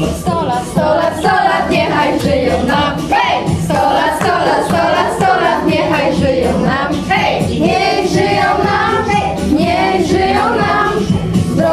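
A group of teenage girls singing a song together.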